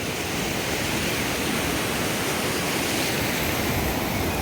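Sea surf: waves washing onto the beach with a steady rushing noise.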